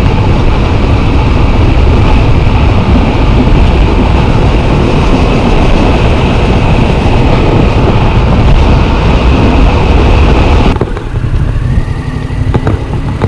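Yamaha MT-07 parallel-twin engine running under way, with loud wind noise on a chest-mounted microphone. About eleven seconds in the wind noise cuts off abruptly, leaving the engine lower, and a few clicks follow near the end.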